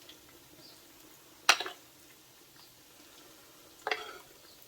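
A spoon clinking twice against cookware while akara batter is spooned into hot oil: a sharp clink about a second and a half in, and a softer one just before the end.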